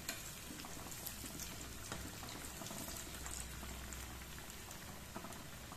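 Hot oil sizzling and bubbling steadily around kara vadai (chana and urad dal fritters) deep-frying in a steel kadai, with faint scattered crackles. The fritters are browned and close to done.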